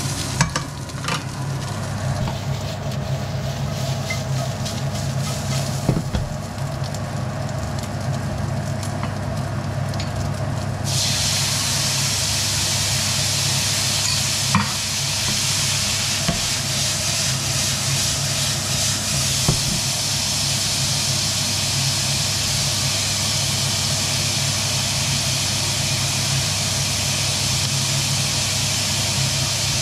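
Squid frying in a hot nonstick pan, with tongs clicking against the pan as the pieces are turned, over the steady hum of the extractor fan. About eleven seconds in, the sizzle jumps to a loud, steady hiss as more goes into the pan.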